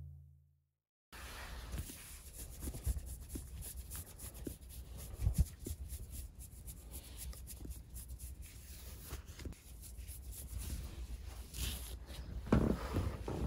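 Fingers scratching and rubbing through a kitten's fur close to the microphone: soft rustling with scattered light clicks, a little louder near the end. At the very start a deep musical hit fades out.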